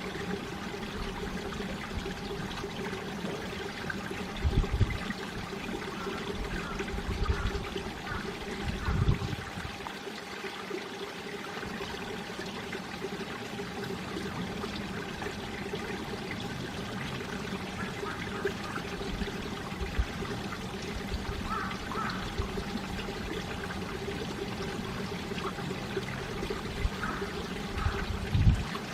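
Mountain stream water flowing steadily, with a few brief low thumps of wind buffeting the microphone.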